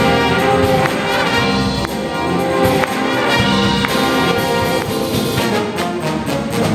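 A jazz big band plays the closing bars of a funk tune: brass and saxophone sections over drum kit, congas and bass, with sharp drum accents.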